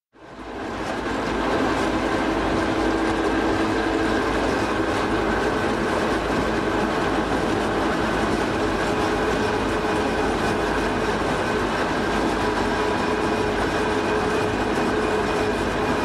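Running noise of a mining-railway locomotive in motion, heard from inside its cab: a steady rumble of wheels on track with several steady whining tones over it. It fades up from silence over the first second or so.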